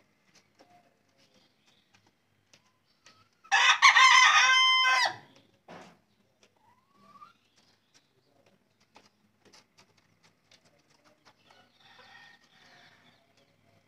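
Desi rooster crowing once, a loud call about a second and a half long that starts a few seconds in and drops in pitch at the end, followed by faint scattered clicks.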